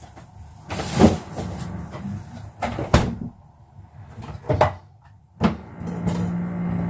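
Kitchen items being handled on a countertop, giving four separate clunks and knocks. A steady low hum starts near the end.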